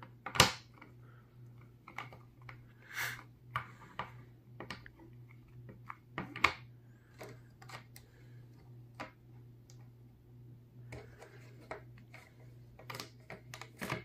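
Charlemain plastic speed cubes (a 2x2, a pyramid cube and a 3x3) being twisted by hand to scramble them: irregular clicks and clacks of the layers turning, in quick clusters near the end.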